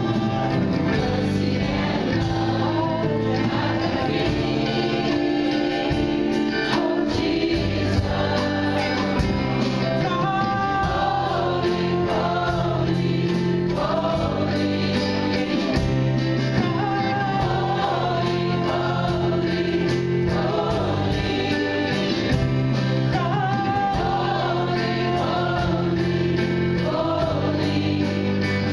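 Live gospel praise-and-worship singing: women's voices singing lead into microphones with backing singers, over held low instrumental notes.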